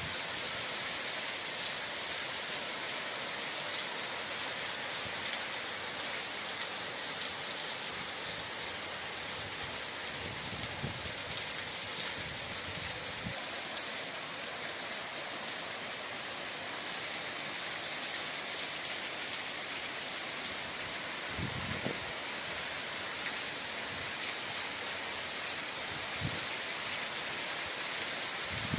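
Steady rain falling, an even dense hiss of drops, with a few brief faint low rumbles now and then.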